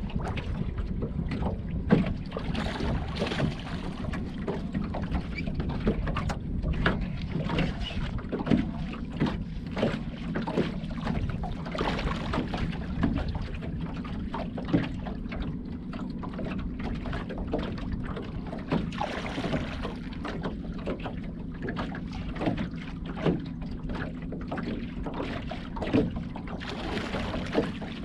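Small boat on the water with wind on the microphone: irregular knocks and splashy hiss over a steady low hum.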